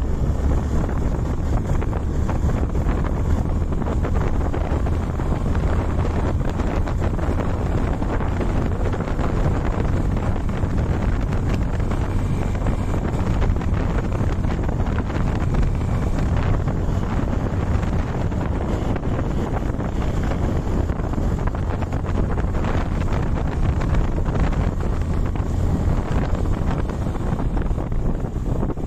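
Steady wind rush on the microphone of a moving motorcycle, with the bike's engine running underneath.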